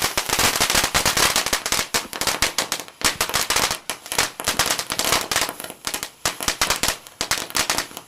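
Firecrackers going off in a rapid, dense string, a continuous crackle of sharp pops with only brief dips in intensity.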